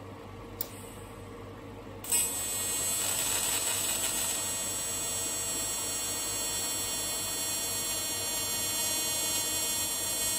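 AC TIG welding arc on aluminium, struck about two seconds in with a brief louder crackle, then buzzing steadily. A small click comes just before, under a second in.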